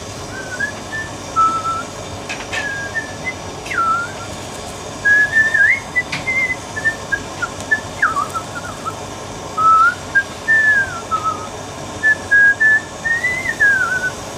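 A man whistling a tune, single notes wandering up and down, over the steady hiss of a blowtorch flame heating a copper pipe joint for soldering.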